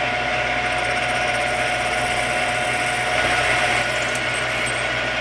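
A power tool running steadily at an even speed, a constant whirring noise with a faint steady whine.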